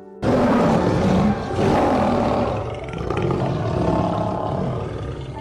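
A large animal roaring: a loud, rough roar that starts abruptly just after the start and carries on, swelling and easing a couple of times.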